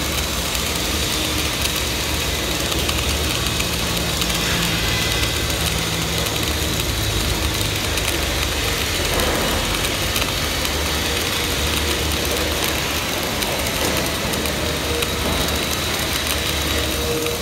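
Flux-cored arc welding at about 24 volts and 200 amps: the arc crackles and hisses steadily throughout a vertical weave, over a low steady rumble.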